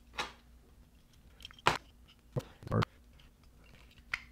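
About five sharp clicks and knocks as small screws and a screwdriver are handled against the plastic casing of a dashboard digital clock during reassembly. The loudest comes about a second and a half in.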